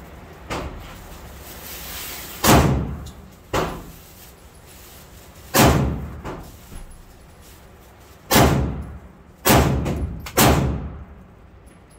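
Gunshots in an indoor shooting range: five loud shots at uneven intervals a second or three apart, two of them close together near the end, with a couple of fainter shots between, each ringing briefly off the range walls.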